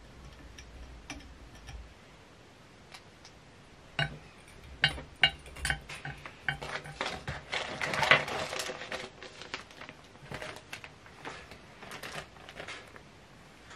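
Fly-tying tools and materials handled at the tying bench: scattered small clicks and taps, getting busier about four seconds in, with a denser clatter and rustle about seven to nine seconds in.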